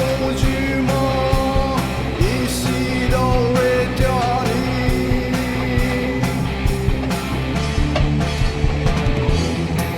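Background music: a song with singing over a guitar-band accompaniment and a steady beat.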